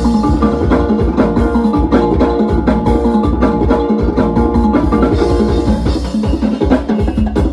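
Music with a steady beat: heavy bass under dense, sharp percussion hits and sustained pitched notes.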